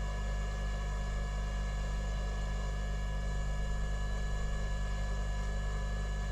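Steady electrical hum with a faint even hiss from a hot air rework station blowing during soldering; the level stays constant throughout.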